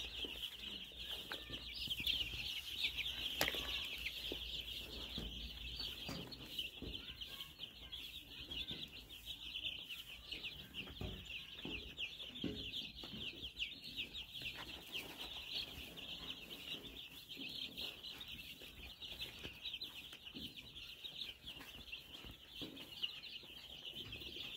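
A flock of baby chicks peeping continuously, many high, short cheeps overlapping into a constant chorus.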